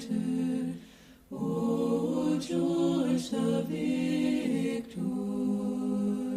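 Unaccompanied choir singing an Orthodox-style church chant in held chords that move in steps. The voices break off briefly about a second in, then come back.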